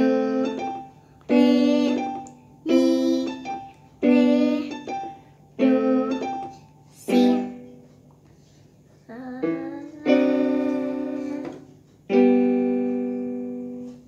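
Digital piano played by a child: a slow beginner piece of two-handed chords struck about every second and a half, each left to fade. After a short pause it ends on two long held chords that ring out.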